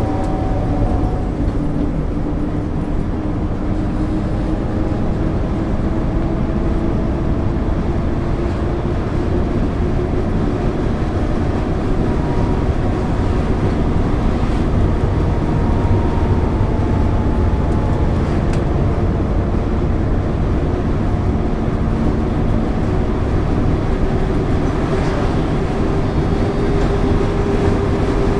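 1999 MAN ÜL 353 intercity bus under way, heard on board: steady diesel engine and drivetrain rumble with a whine that slowly climbs in pitch.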